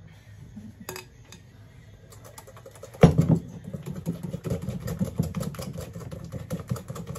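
Cake batter being mixed by hand in a bowl, the utensil clattering quickly against the bowl's side, with a loud knock about three seconds in.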